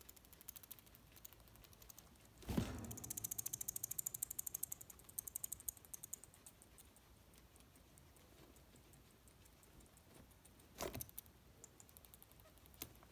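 Guinea pig bumping against its plastic hideout with a thump, then rapid clicking teeth chattering for about two seconds, the guinea pig warning sign of aggression. Another thump follows near the end.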